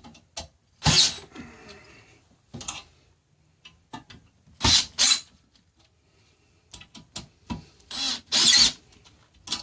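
A cordless power driver tightening the bolts that fix a bar stool's swivel plate to the seat, run in about six short bursts with small clicks between as it moves from bolt to bolt.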